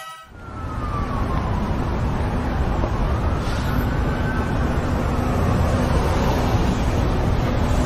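City street traffic noise, a steady rumble of passing vehicles that fades in at the start, with a faint siren wailing slowly up and down over it.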